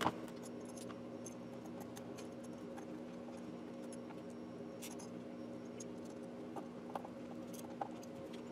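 Faint, scattered light clicks and taps of small kit parts (a plastic bracket, screws and washers) being handled and set down on a board, over a steady low hum.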